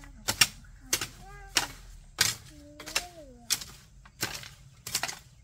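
A run of sharp knocks, about two a second, with a few short calls between them that rise and then fall in pitch.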